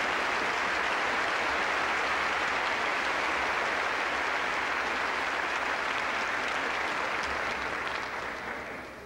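Large audience applauding steadily, the applause fading out near the end.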